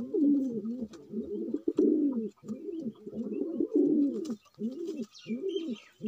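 Domestic pigeon cooing over and over: a run of short coos, each rising and then falling in pitch, about two a second with brief pauses.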